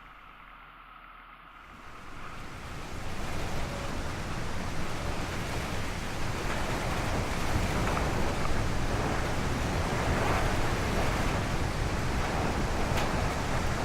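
Steady rushing noise of a car driving through a blizzard, wind and road noise together. It swells in about two seconds in, after a moment of faint hiss.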